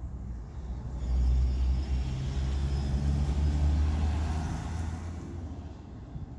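Low engine rumble that swells about a second in and fades away near the end.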